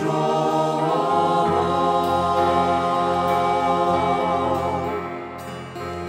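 Mixed vocal ensemble of men and women singing a Ukrainian Christmas song in harmony through microphones, holding long notes. A low bass accompaniment comes in about a second and a half in, and the singing fades near the end.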